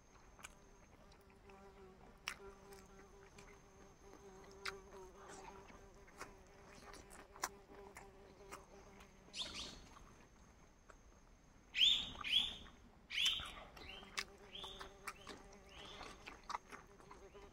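A flying insect buzzing near the microphone: a steady, even hum that drops out for a few seconds in the middle and then comes back. Scattered light clicks run underneath, and a run of brief, sharp, louder sounds comes about twelve to sixteen seconds in.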